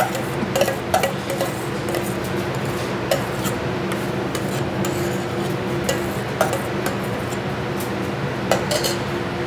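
A metal spoon scrapes and clinks a handful of times against a stainless steel bowl as thick zabaione custard is poured and scooped out. Under it runs a steady kitchen hum.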